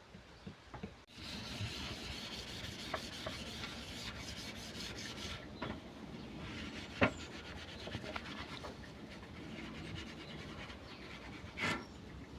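Sanding the steel panels of an old PC case: a steady abrasive rubbing that starts about a second in and eases off partway through. A single sharp knock comes about seven seconds in, and a couple of short scrapes near the end.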